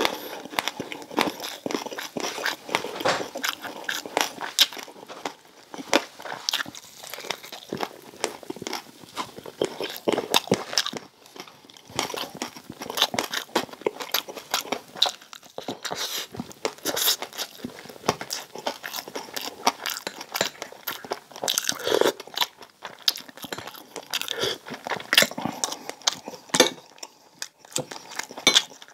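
Mouth crunching and chewing crispy deep-fried pork belly, a dense run of sharp crackles from the crisp skin with wet chewing between bites.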